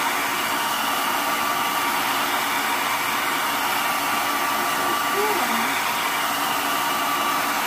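Handheld hair dryer running steadily, blowing hot air onto wax crayons to melt them.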